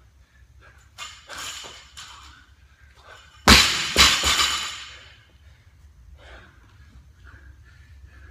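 A 135-pound barbell loaded with bumper plates dropped onto rubber gym flooring: a loud crash, then a second bounce about half a second later, ringing briefly as it settles.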